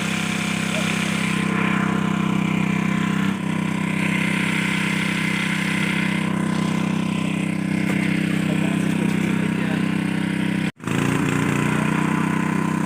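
Engine-driven water pump running steadily while draining a pond. The sound cuts out abruptly for a split second near the end.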